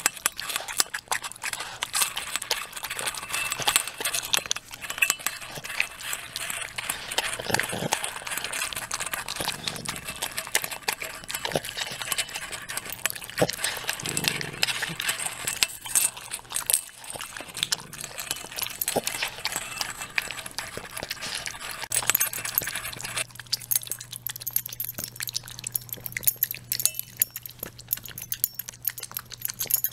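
Dogs eating wet chunky stew from a metal bowl: a quick, continuous run of smacking, chewing and licking sounds, with small clinks against the bowl.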